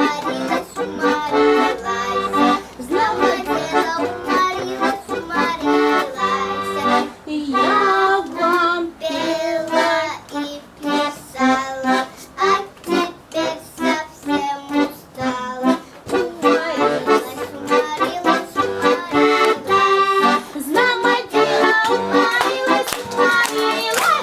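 Girl singing a Russian folk song with accordion accompaniment.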